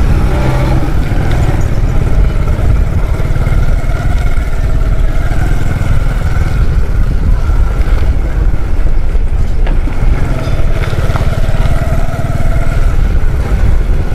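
Loud, steady low rumble of street background noise, with faint higher tones coming and going.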